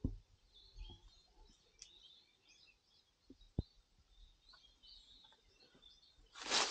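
Faint bird chirps in the background, with a few soft knocks. Near the end a loud rustling crunch begins.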